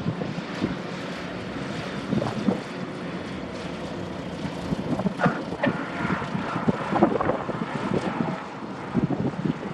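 Airplane engine running with a steady low hum, mixed with wind buffeting the microphone.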